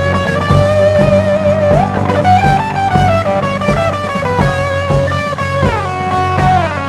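Psychedelic rock instrumental: an electric guitar lead with bent, sliding notes over bass and drums.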